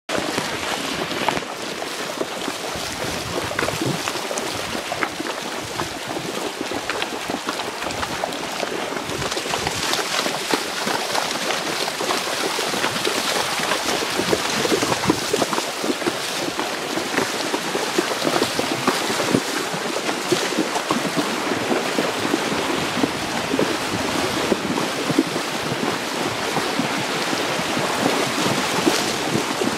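Horses wading through a shallow river: continuous splashing and sloshing of water around their legs, with the river's rush underneath.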